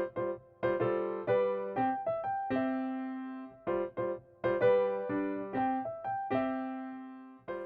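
Background piano music: a gentle melody of struck notes and chords, each fading after it is played.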